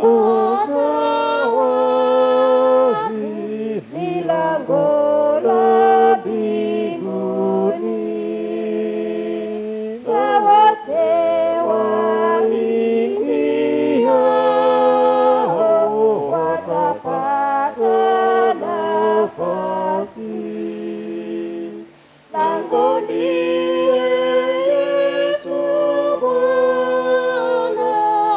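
Small church choir of two women and two men singing a hymn together into microphones. The singing breaks off for a moment about three-quarters of the way through, then carries on.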